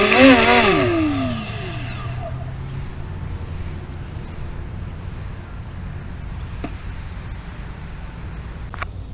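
Small quadcopter motors whining loudly with a wavering pitch, then winding down in falling pitch about a second in and stopping. After that only a steady low background hiss, with one sharp click near the end.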